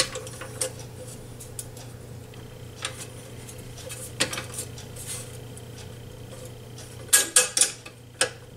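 Scattered light metallic clinks and clicks of a wrench and nut being handled against a rolling stool's base while a swivel caster is bolted back on, with a quick cluster of louder clinks near the end.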